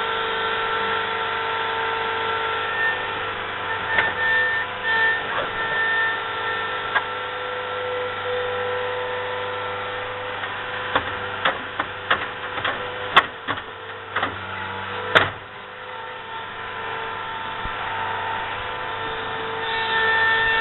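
Engine of a compact construction machine running steadily, with several steady tones in its drone. A string of sharp knocks and clanks comes about halfway through, the loudest about two-thirds of the way in.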